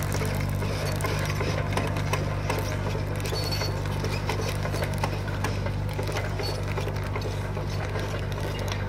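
Mini excavator's engine running steadily with a low hum as the machine creeps along pulling a cable plough that lays conduit in the ground, with constant rapid, irregular clicking and rattling throughout.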